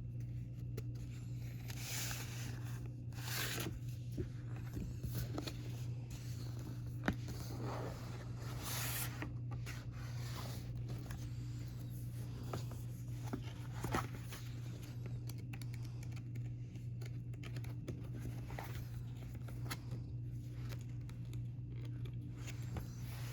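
K-pop album packaging being handled: irregular tearing, scraping and rustling strokes of paper and plastic a few seconds apart, over a steady low hum.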